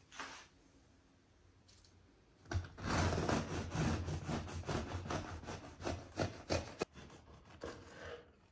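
Kitchen knife sawing through a crusty baked stollen loaf with quick back-and-forth strokes, down to the wooden cutting board. The sawing starts about two and a half seconds in and stops just before the end.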